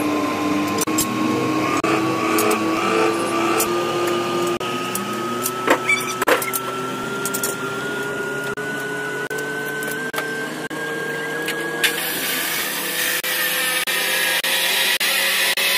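A steady engine-like hum whose pitch rises slowly, with sharp metal clanks about six seconds in from steel leaf-spring leaves being handled and stacked. A hissing noise takes over near the end.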